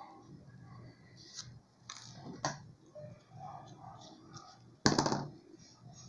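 Quiet handling sounds of hand-sewing a grosgrain ribbon bow: thread pulled through the ribbon, fabric rustling and a few soft clicks, with one louder brief noise about five seconds in.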